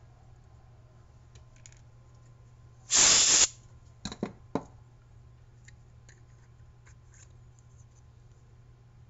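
A loud hiss lasting about half a second, about three seconds in, followed by three quick clicks as the plastic night-vision housing parts are handled.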